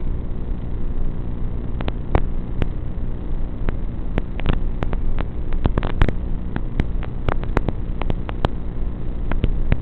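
Steady low electrical buzz with many irregular crackling clicks, the kind of audio that an analog FPV video link records through the goggles' DVR while a Tinyhawk 3 flies.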